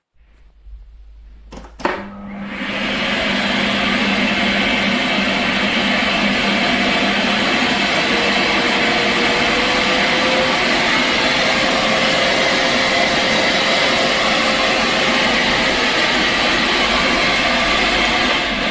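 Bosch Serie 6 bagless cylinder vacuum cleaner switched on with a click about two seconds in, its motor spinning up to a loud, steady rushing noise that runs on.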